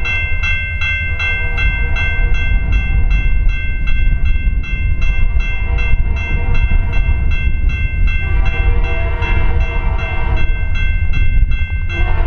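Grade-crossing warning bell ringing steadily, about three strikes a second. From about eight seconds in the approaching Canadian Pacific GP20C-ECO locomotive's horn joins it, with a short break before it sounds again near the end.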